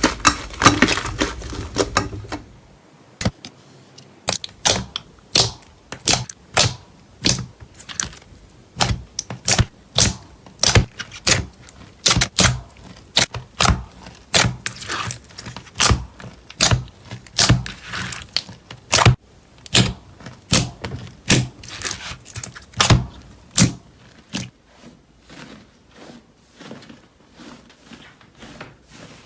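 Slime being pressed and squeezed by hand, giving a long run of sharp popping clicks, about two a second. The clicks turn fainter near the end.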